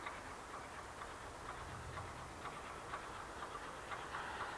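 Distant steam-hauled train approaching, heard faintly as a light, irregular ticking of about two or three clicks a second.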